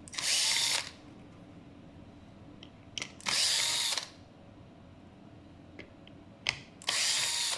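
Cordless drill-driver running in three short bursts, each under a second, with a click just before each. It is backing out the screws of the motor's three wire terminals on an electric scooter's controller board.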